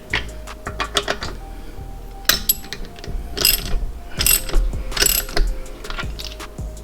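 Hand ratchet clicking in short runs as lug nuts are run down snug on a wheel, worked around in a star pattern.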